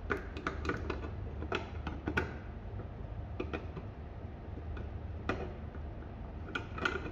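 Sharp metal clicks and small knocks as a portafilter, with no basket in it, is fitted and twisted in the group head of a La Pavoni Professional lever espresso machine to force a new group seal into place. The clicks are irregular, bunched in the first two seconds and again near the end.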